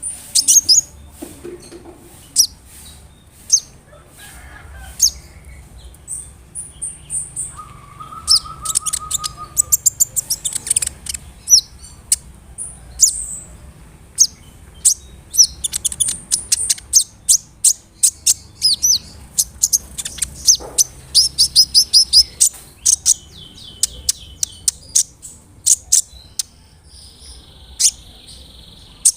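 Kolibri ninja sunbird singing: a long run of sharp, high chips and fast trills, broken by a few held buzzy notes.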